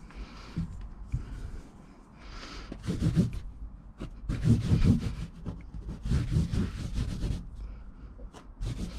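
Hand rubbing and pressing on anthracite four-way stretch carpet glued over a plywood lining panel, in a few irregular rubbing strokes, the loudest a little after the middle.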